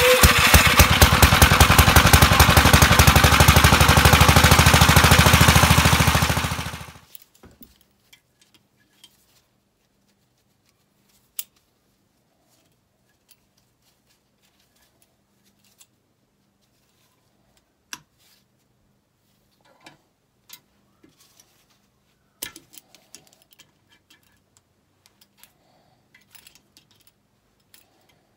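Loud, very rapid mechanical hammering for about seven seconds, then it cuts off abruptly. After that come scattered light metal clicks and clinks of hand tools on a Kohler K241 engine block.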